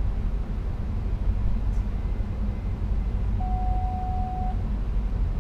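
Steady low rumble of an NS SLT (Sprinter Lighttrain) electric multiple unit running, heard inside the driver's cab. A little past the middle, a single steady beep sounds for about a second.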